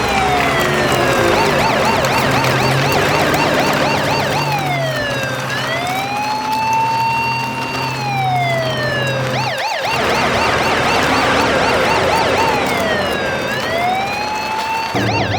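Electronic emergency-vehicle siren alternating between a slow rising and falling wail and a rapid yelping warble, switching back and forth several times, over a steady low hum.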